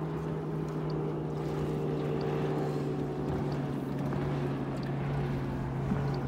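Small boat's motor running steadily at trolling speed, an even low hum with water and wind noise.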